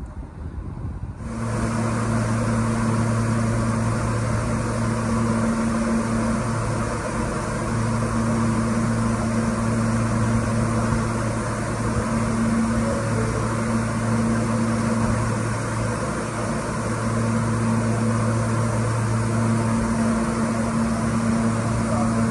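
Steady hum and rushing noise of a subway train standing at the platform, its air-conditioning and auxiliary equipment running, with a low two-note drone that drops out and comes back several times. It starts abruptly about a second in.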